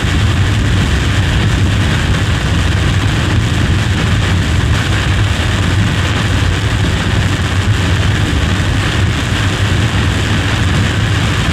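Steady road and engine noise of a moving vehicle, a low, even rumble with no breaks.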